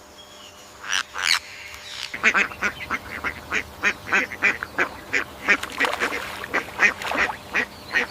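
An animal giving a rapid series of short honking calls, about three or four a second, after two louder calls about a second in.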